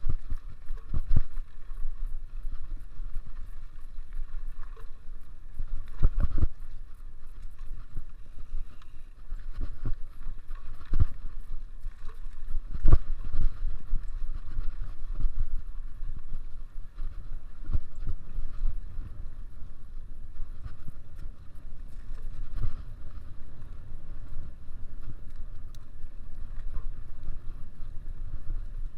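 Mountain bike being ridden over a dirt cross-country trail: a steady rumble of tyres and frame with wind on the microphone, broken by sharp knocks from bumps every few seconds.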